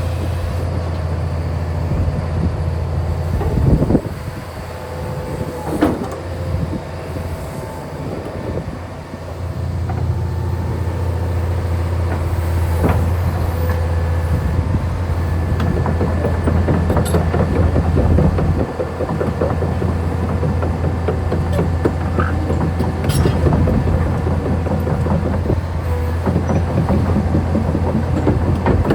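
Kobelco SK500LC-9 excavator working: the diesel engine runs steadily under hydraulic load, its level dipping and recovering a few times, with occasional metal clanks and knocks from the machine.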